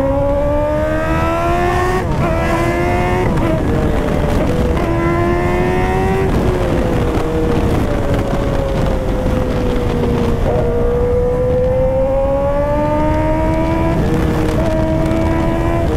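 Kawasaki ZX-10R's inline-four engine pulling hard at highway speed. Its pitch climbs and falls back sharply at each upshift, about two seconds in, again around three and six seconds, and near the end. It eases off for a few seconds midway before pulling again, over heavy wind rush on the microphone.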